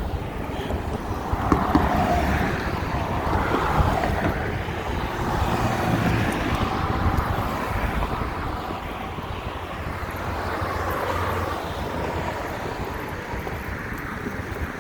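Steady rumble and wind noise from riding an electric stand-up scooter along the street. The noise swells and fades every few seconds with no clear engine note.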